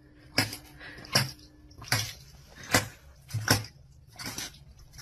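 A run of about six sharp knocks or clatters, roughly one every three-quarters of a second, some with a dull thud beneath them.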